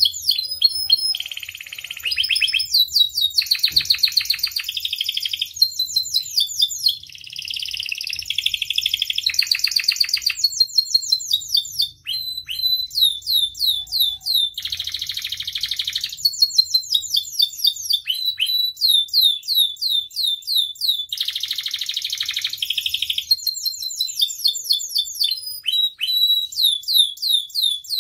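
Domestic canary singing a long, unbroken song: quick runs of repeated falling notes alternating with dense, buzzy rolls.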